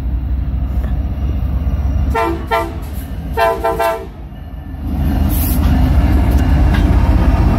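SD70ACe diesel locomotive approaching a grade crossing, its engine rumbling steadily while its chord air horn sounds two short blasts about two seconds in and a longer blast a second later. The rumble grows louder near the end as the locomotive draws level.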